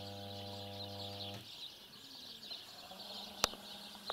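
Small birds chirping in the background, with a steady low machine hum that cuts off suddenly about a second and a half in. A single sharp click comes near the end.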